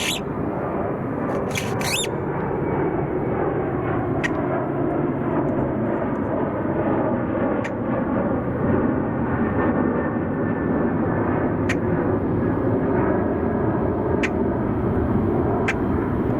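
Jet aircraft engine noise: a steady, loud rush with faint wavering tones and a few sharp ticks scattered through it.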